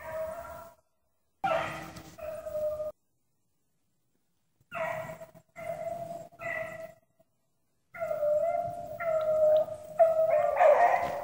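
Hunting hounds baying as they run a rabbit: a series of drawn-out bawls in short bursts. After a pause, the baying comes almost without a break and grows louder near the end, with voices overlapping.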